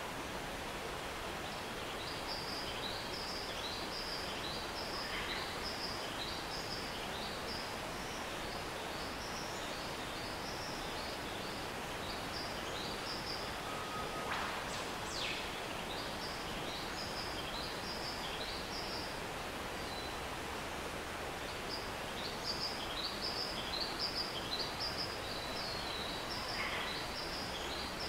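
Steady rush of a rainforest stream. Over it, birds chirp in quick runs of short high notes, and one sharp whistle falls steeply in pitch about halfway through.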